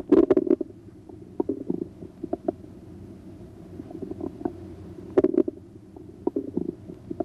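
Bowel sounds heard through a stethoscope's diaphragm over the right lower quadrant of the abdomen: irregular clicks and gurgles in short clusters, at the start and again about five seconds in, over a steady low background.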